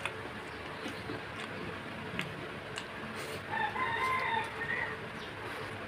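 A rooster crowing once, one long wavering call of about a second and a half starting a little past halfway, over small clicks of fingers mixing rice and pork fry on a banana leaf.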